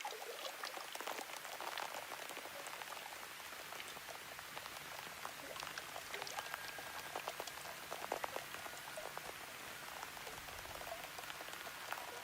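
Steady rain-like pattering: an even hiss full of small irregular ticks and crackles, with a few brief faint tones now and then.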